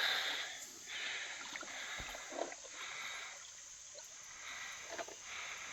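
Creek water running, with a few faint knocks.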